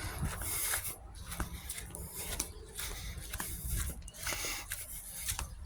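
Rubbing and rustling handling noise on a hand-held recording device, with a low rumble and irregular light taps.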